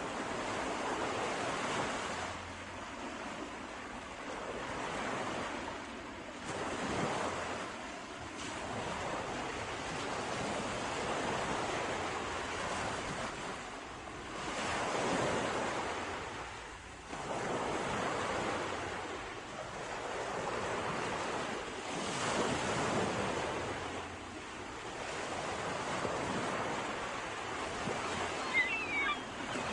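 Sea waves breaking and washing ashore, the surf swelling and falling back every few seconds.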